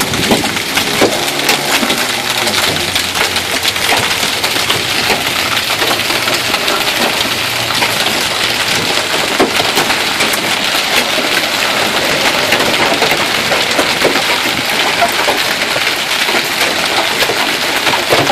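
Heavy rain and hail: a steady downpour with many sharp, irregular clicks and knocks of hailstones striking hard surfaces.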